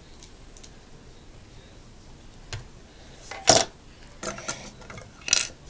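Small plastic Lego pieces clicking and rattling as a little model is handled: a few short sharp clicks, the loudest about three and a half seconds in and another near the end.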